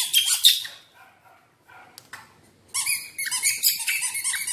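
Baby macaque making rapid, high-pitched squeaking calls, several a second. They stop just under a second in and start again after a near-quiet gap of almost two seconds.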